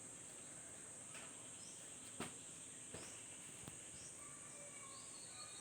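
Crickets trilling steadily in the background, a high thin sound, with a few faint clicks from handling the unit about two, three and nearly four seconds in.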